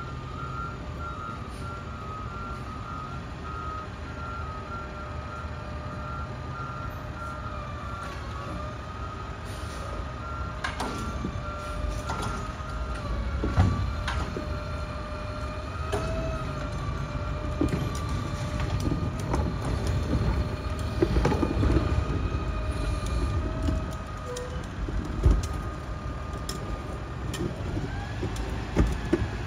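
Garbage truck's diesel engine running, its reversing alarm beeping at an even pace through the first half. A wavering whine runs alongside, and the engine gets louder through the middle. Several sharp clanks and knocks come from the truck, the loudest a little under halfway and again near the end.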